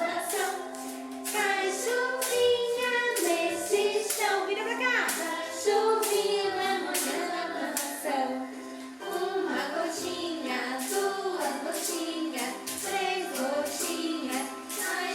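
Children's song playing: young voices singing a melody over an accompaniment with a steady percussive beat.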